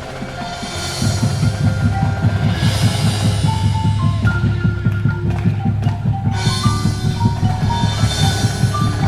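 Xylophone playing a melody of short notes over bass and snare drums; a fast, dense low drum beat comes in about a second in and stays under the melody.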